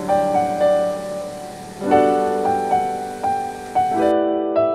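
Background piano music: a slow melody of single struck notes over held lower notes.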